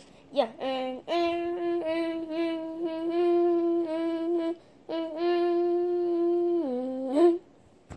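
A voice humming a tune in long held notes, in two phrases with a short break about halfway, sliding down in pitch near the end before a brief rise.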